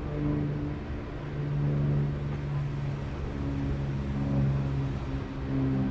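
An engine droning steadily, its pitch shifting a little, over a low wind rumble on the microphone.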